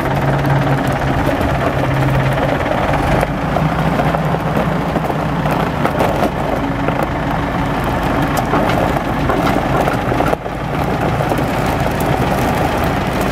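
1989 Michigan L70 wheel loader's diesel engine running steadily while the boom and bucket are worked.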